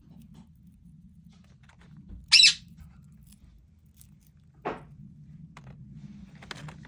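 Pet parrot calling: a loud, shrill squawk about two seconds in, then a shorter, lower call a couple of seconds later and a fainter one near the end.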